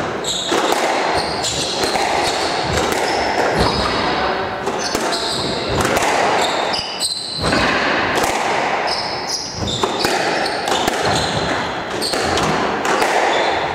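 Squash rally: the ball knocking off rackets and the court walls again and again, with shoes squeaking on the wooden court floor.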